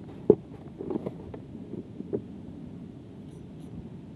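Small clicks and knocks from handling a spinning rod and reel. A sharp click comes about a third of a second in, then several softer ones over the next two seconds, over steady low background noise.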